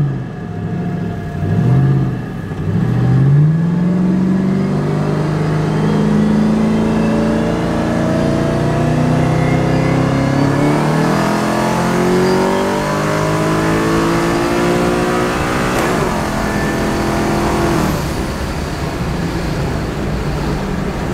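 Twin-turbo Ford Mustang's Coyote V8, heard from inside the cabin, accelerating in a short test pull. The revs climb in a few quick rises at first, then in a long pull, drop and climb again at a gear change about ten seconds in, and settle lower near the end.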